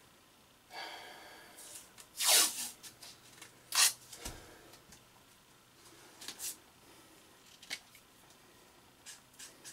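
Strips of tape pulled off a roll in a few short rasps and torn off, the loudest about two seconds in, followed by small handling clicks.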